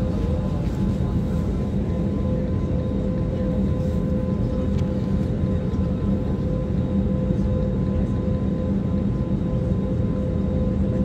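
Steady drone of an airliner's cabin noise, a low rumble with a constant hum on top, heard from a passenger seat.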